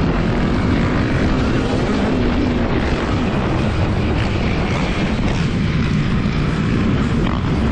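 Yamaha WR155R's single-cylinder 155 cc engine running while the motorcycle is ridden, its pitch rising and falling with the throttle.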